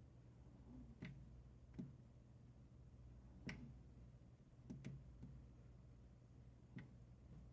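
Faint, scattered clicks, about six over several seconds, from a Coofly S1000 portable power station as it is switched on and shuts itself off again at once, over a low steady hum. The power station is faulty: it will not stay on for more than half a second despite being charged.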